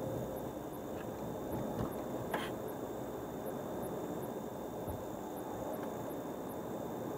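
Steady road and tyre noise of a car driving along a highway, with a few small knocks and one sharper knock about two and a half seconds in.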